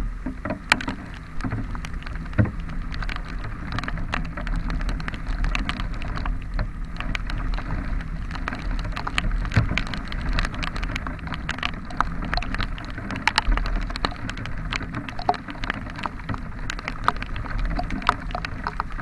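Rain on a moving motorcycle: a dense run of sharp raindrop taps close to the microphone over the steady low hum of the engine and road noise. The rain is heavy and getting heavier.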